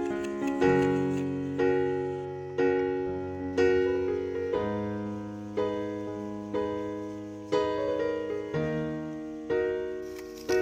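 Background music: slow piano chords, struck about once a second and left to fade.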